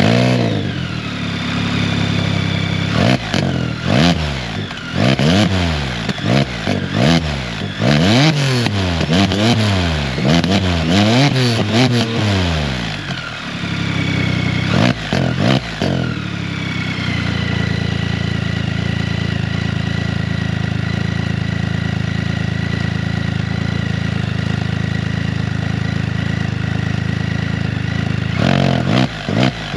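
Can-Am Spyder F3s's Rotax 1330 ACE inline three-cylinder engine breathing through a new RLS Echo Series closed exhaust. It is revved in repeated blips, rising and falling for about twelve seconds, then settles to a steady idle and is blipped again near the end.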